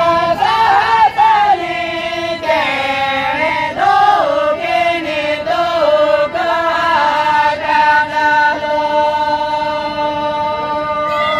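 Santali lagne song: singing in a chant-like, wavering melody, settling into long held notes in the second half.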